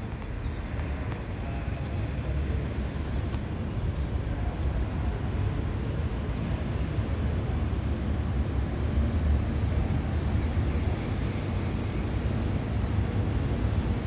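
Steady low outdoor rumble that grows slightly louder, with no distinct calls or knocks in it.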